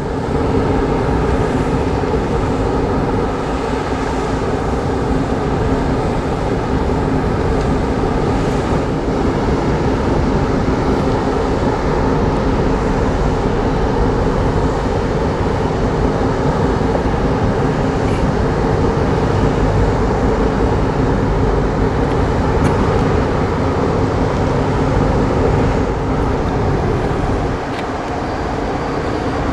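Steady drone of a large ferry's engines and machinery, a constant low hum under a rushing noise. It drops a little about two seconds before the end.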